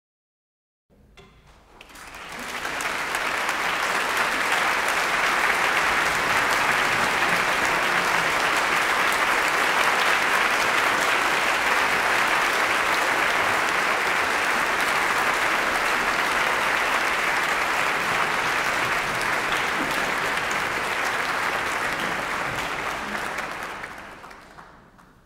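Audience applauding: a long, steady round of clapping that swells in shortly after a moment of silence and fades away near the end.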